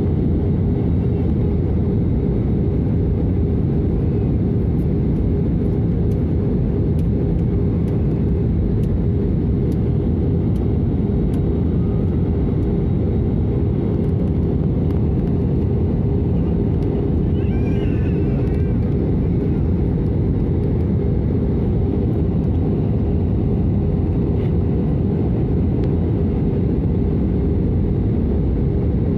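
Steady cabin noise of a jet airliner in cruise, heard from a window seat over the wing: an even, low rumble of the engines and airflow with a faint steady hum.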